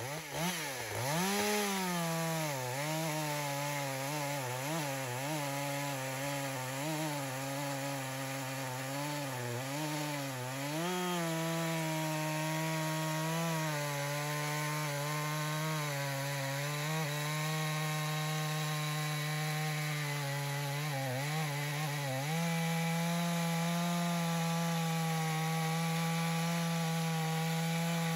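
Echo CS-620 two-stroke chainsaw with a 24-inch bar revving up and cutting full-bar-depth into a dense honey locust log. The engine pitch dips and recovers repeatedly as the chain bites during the first ten seconds or so, then holds steady under load, keeping its chain speed up, and settles slightly higher about two-thirds of the way through.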